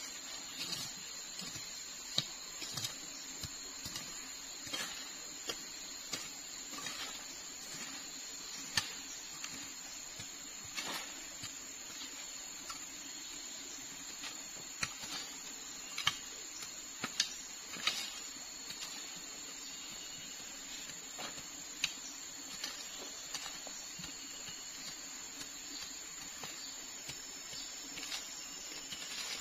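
Hoe blade chopping into forest soil in short, sharp, irregular strikes, about one every one to two seconds, over a steady high-pitched drone.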